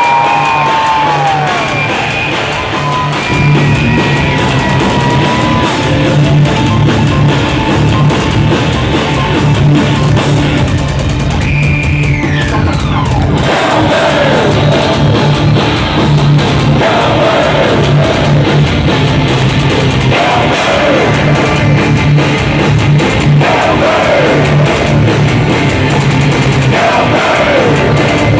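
Live heavy rock band playing loud: distorted electric guitars over bass and drums, with a guitar line of falling note bends repeating every few seconds.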